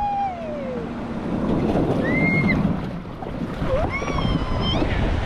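Rushing water with wind buffeting the microphone, and a high-pitched voice squealing three times in short, rising-and-falling cries.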